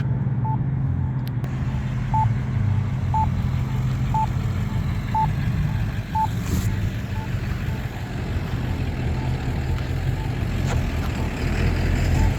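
Campbell accessible pedestrian signal push button sounding its low-pitched locator tone, a short beep about once a second that marks the wait phase, clearer in the first half and fading later. A steady low rumble of vehicle engines runs underneath.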